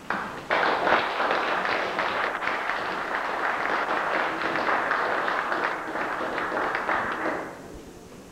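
Audience applauding in a small hall, a dense patter of many hands that starts about half a second in, holds steady and dies away near the end.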